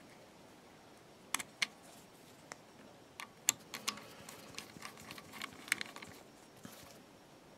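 Faint clicks and scrapes of a small screw and earth-wire tag being fitted and driven in with a screwdriver on a Lucas ACR alternator's brush box. Two sharp clicks come about a second and a half in, then a run of small ticks and scrapes as the screw is turned.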